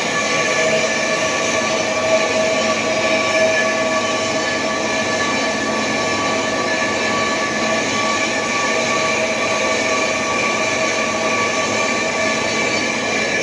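Lathe facing a truck's brake parts: steady metal-cutting noise with several sustained squealing tones from the tool on the turning metal.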